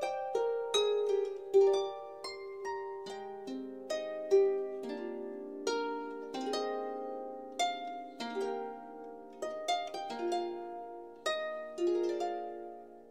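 Background music: a slow melody of plucked string notes, each starting sharply and ringing on as it fades, with several notes overlapping.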